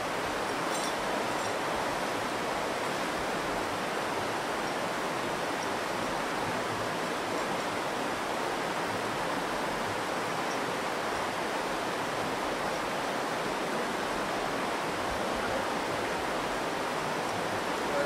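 Steady rush of the Virgin River's flowing water, an even wash of noise with no change in level.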